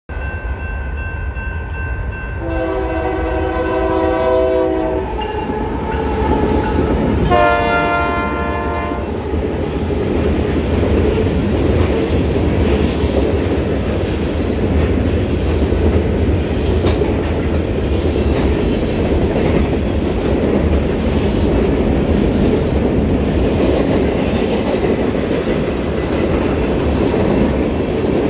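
Freight train locomotive horn blowing for a grade crossing, loudest in two long chords about 2.5 and 7.5 seconds in. Then the steady rumble and clickety-clack of freight cars rolling past over the crossing.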